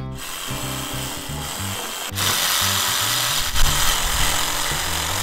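Electric sander running against wood to smooth the edges, a steady dense hiss that grows louder about two seconds in, with background music underneath.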